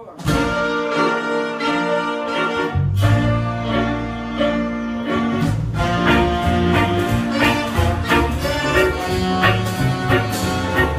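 Live jazz band playing a swing tune on piano, saxophones, trumpet, guitars and drum kit. The band comes in together just after the start, the low end fills in about three seconds in, and steady drum and cymbal strokes carry on from about halfway.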